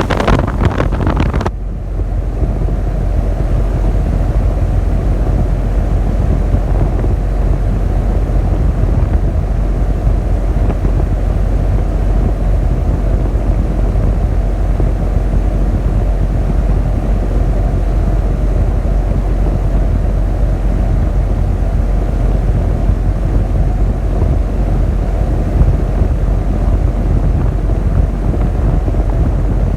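Rheem 5-ton outdoor air-conditioner condensing unit running steadily, a low, even rumble from its fan and compressor. A louder rustling noise fills the first second and a half before it settles.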